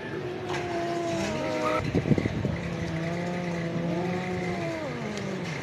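Angry cat growling in a long, drawn-out wavering yowl, with a rough, pulsing snarl about two seconds in and the pitch sliding down near the end.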